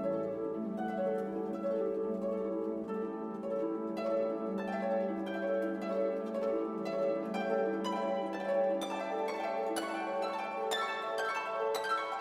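Gentle instrumental background music: a melody of quick plucked-string notes over a held low tone, the notes growing denser about a third of the way in.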